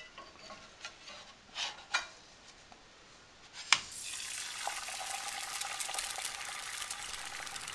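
A pancake sizzling in a cast-iron skillet, the sizzle coming in about four seconds in, just after a few soft knocks and one sharp click.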